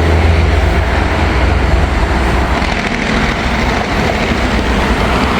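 Heavy interstate traffic on I-75 passing below, a steady loud rumble of tyres and engines.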